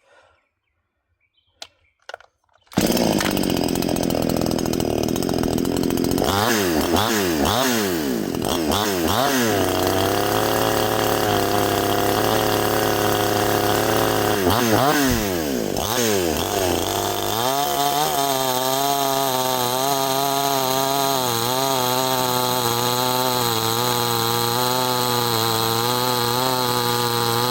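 Near silence with a few small clicks, then a 62cc two-stroke gas chainsaw (Neotec NCS6200) comes in suddenly about three seconds in. It is revved up and down a few times, then held at high revs. From about two-thirds through, its pitch wavers steadily as it cuts through hard oak, with the chain now mounted in the proper direction and cutting well.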